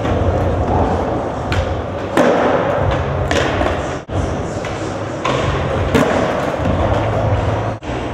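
Skateboard wheels rolling on a concrete floor, with several sharp clacks and thuds as the board is popped and lands.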